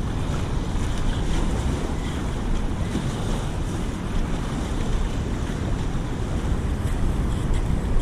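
Steady wind buffeting the microphone over the wash of open water.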